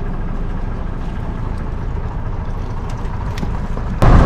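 Fishing trawler's inboard diesel engine running steadily with a low, even rumble.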